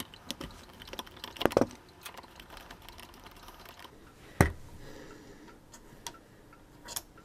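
Light, irregular metal clicks and taps as a screwdriver backs out the stock screw of a Rossi R92 lever-action rifle and the rifle is handled, with one sharper knock about four and a half seconds in.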